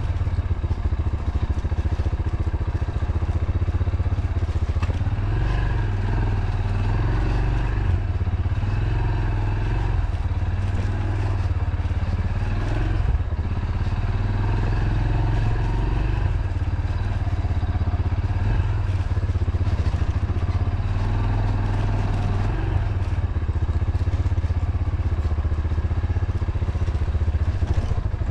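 Motorcycle engine running steadily as the bike rides over a bumpy dirt track, with occasional knocks from the rough ground.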